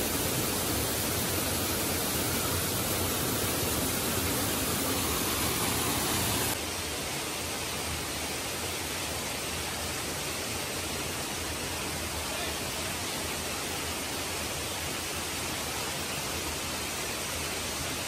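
Steady rush of waterfall and river water, stepping down a little in level about six and a half seconds in.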